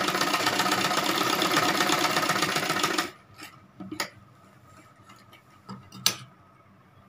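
Straight-stitch sewing machine running fast, stitching through gathered fabric, then stopping abruptly about three seconds in. A couple of faint clicks follow.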